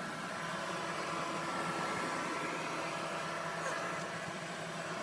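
A steady hum with hiss and a few constant tones, like a household appliance or fan running.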